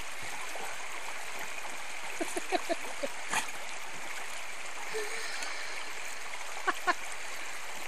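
Shallow rocky river running steadily, with a few short splashes about two to three seconds in and again near the end as a dog wading in it dunks and lifts its head to hunt for a stone on the bottom.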